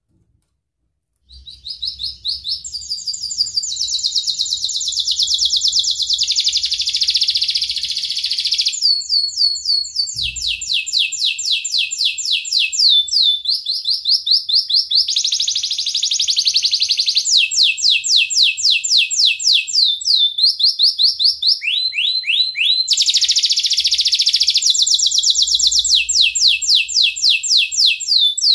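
Domestic canary singing a long, unbroken song of rapid trills, starting about a second in. Each trill is one quick note repeated many times, switching to a new trill every second or two.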